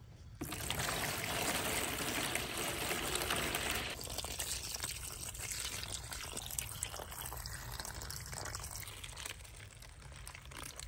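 Water being poured into plastic ice-cube trays: a strong, steady pour from about half a second in, easing to a lighter pour and trickle after about four seconds.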